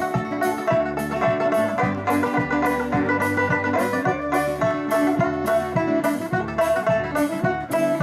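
Live folk band playing an instrumental passage: fiddle, banjo and acoustic guitar over a drum kit. Drum and cymbal strokes keep an even beat about twice a second.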